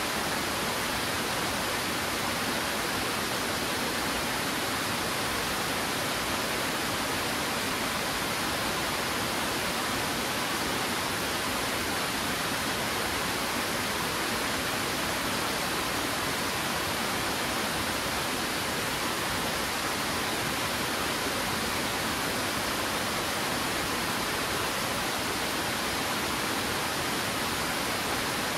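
Twin Falls waterfall: a steady rush of falling water cascading over rock, constant and unbroken.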